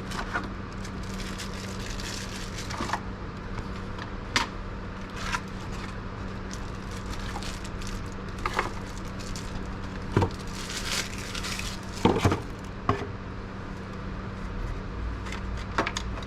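Scattered light clicks, knocks and rustling from handling a small network switch and its cables, over a steady low hum.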